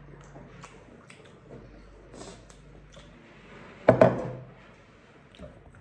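Close-up eating sounds of noodle soup: soft slurps, chewing and small clicks of metal spoons and forks against ceramic bowls, with one short louder burst about four seconds in.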